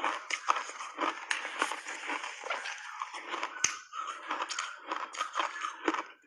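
Close-up chewing of crunchy block ice coated in milk powder: dense, irregular crunching and crackling as the ice breaks between the teeth, with one sharp crack a little past halfway.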